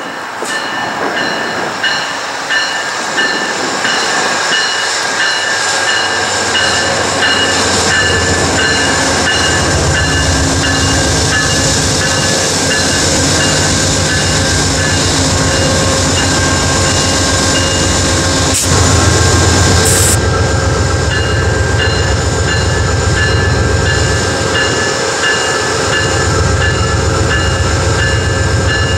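Amtrak passenger train led by a GE Genesis diesel locomotive passing close by: steady diesel engine rumble with wheel and rail noise, growing louder over the first several seconds as it comes alongside.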